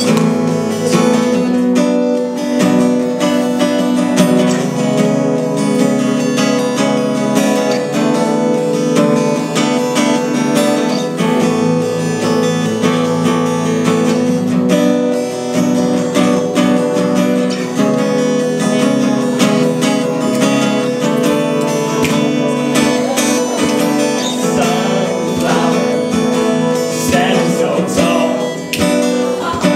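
Acoustic guitar strummed steadily, accompanying a small group of young men singing together.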